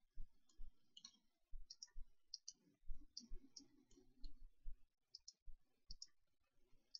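Faint computer mouse button clicks, about a dozen at irregular intervals, several coming two in quick succession, with soft low thuds beneath them.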